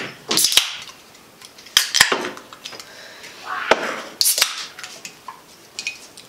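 Aluminium beer cans being cracked open one after another: several sharp pull-tab pops, each followed by a short fizzing hiss of escaping carbonation, with a few knocks of cans against the table.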